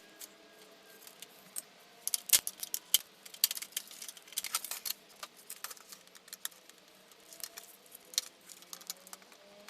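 Irregular sharp clicks and light rattles of small metal parts and a hand tool as a VCR's mechanism is taken apart by hand. The loudest click comes about two and a half seconds in.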